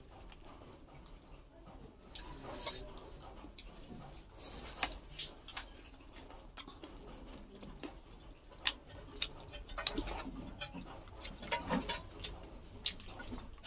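Close-miked eating: irregular crisp clicks and crunches of biting and chewing, with a few sharper clicks in the second half.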